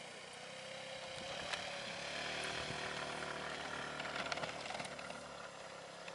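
Small motor scooter's engine running hard under load as it climbs a steep dirt slope, a steady drone that grows louder in the middle and eases off near the end; the climb is a struggle for it.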